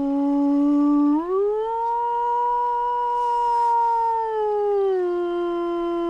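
A man howling through cupped hands in imitation of a wolf: one long howl that climbs in pitch about a second in, holds, and steps down to a lower note about five seconds in.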